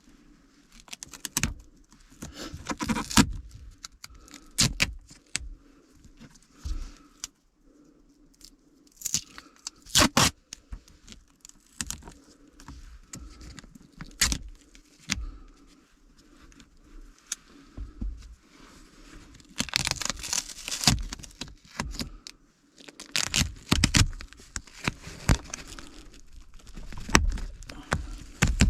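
Plastic dashboard trim of a Honda N-BOX's air-conditioner panel being pried and worked loose: irregular clicks, knocks and scrapes of plastic and retaining clips, with several louder rattling spells.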